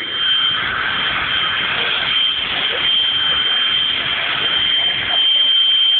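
Jet car's turbine engine running steadily: a continuous rushing noise with a constant high whine through it, growing a little louder near the end.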